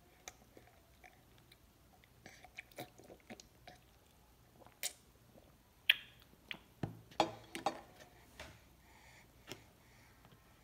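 A baby's faint, wet mouth clicks and smacks as she sucks water through a sippy-cup straw and chews, scattered irregularly and busiest a little past the middle.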